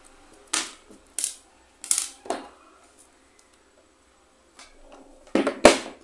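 A handful of short, sharp rustling and clattering handling noises as small craft pieces are picked up and moved about on a tabletop, the loudest pair near the end.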